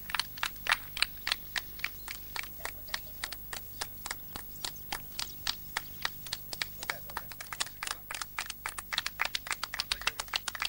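A rapid, uneven series of sharp clicks, about four a second.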